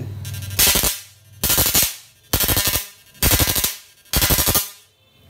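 12-volt IGBT electric fishing inverter's output lead struck against its case, arcing in five loud bursts, each about half a second long and about one a second apart, with a low steady hum between them. This is a spark test of the machine's output.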